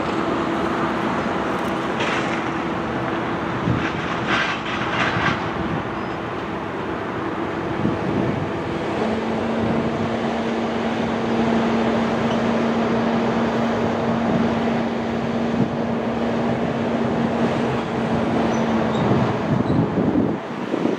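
BNSF freight train passing, a continuous rumble of locomotives and rolling cars. A held steady tone gives way to a lower one about nine seconds in, with a few sharp clicks near the start.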